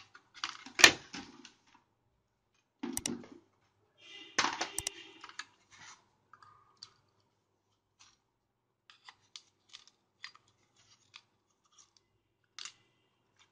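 Scrapes and sharp clicks of hands and a metal tool working on a monitor power board, prying at the silicone glue around its large electrolytic capacitor. The loudest click comes about a second in and rough scrapes follow near three and four and a half seconds in, then only faint scattered ticks.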